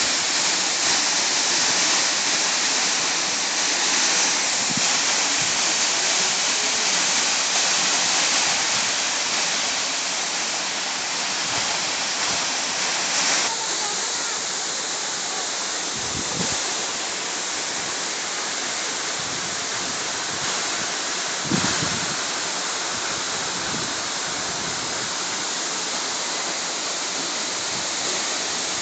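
Waterfall pouring: a steady rush of falling water. About halfway through, the upper hiss eases a little, and two brief knocks come through later on.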